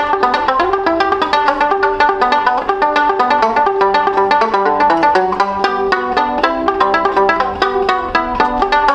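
Banjo fingerpicked in a fast, even run of short picked notes. The banjo is muted by a piece of kitchen sponge stuffed inside it to damp and quiet its ring.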